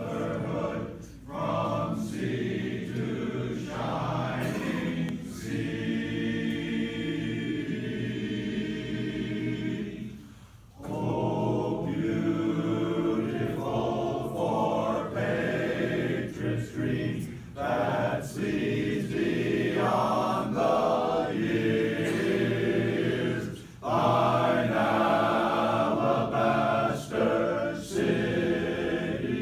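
Men's chorus singing a patriotic song a cappella in close harmony, with brief breaths between phrases about a third and four-fifths of the way through.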